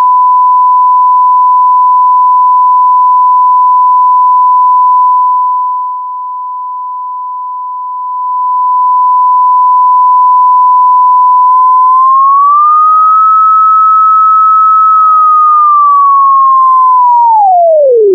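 Pure sine tone from a Max/MSP cycle~ oscillator at 1000 Hz, its volume fading down about five seconds in and swelling smoothly back a few seconds later, ramped by a line~ object so the changes come without clicks. Past the middle its pitch rises a little, holds, then slides steeply down to about 400 Hz as the oscillator frequency is dragged down.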